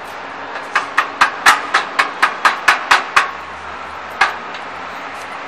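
Hammer blows on the steel frame of a chalk making machine during assembly: about a dozen quick metallic strikes, roughly four a second, then one more a second later.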